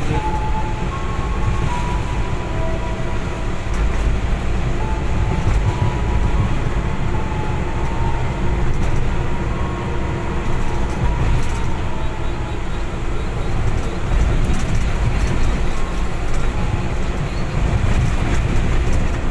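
GE CC 206 diesel-electric locomotive running, heard from its cab: its eight-cylinder GE 7FDL diesel gives a steady low rumble, mixed with wheels rolling on the rails and a few faint clicks from rail joints.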